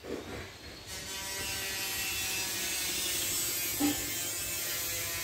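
A small motor running with a steady mechanical buzz, coming in about a second in, with one brief knock near four seconds.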